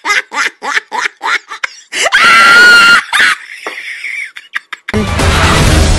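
An animated hen character's cackling laugh, a quick run of 'ha-ha' bursts about four a second, breaking into a long high-pitched scream about two seconds in. Loud soundtrack music comes in near the end.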